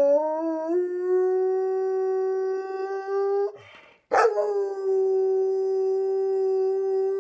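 Dog howling: one long, steady howl that rises slightly in pitch at first, breaks off about three and a half seconds in with a quick breath, then a second howl starts abruptly about four seconds in and holds steady.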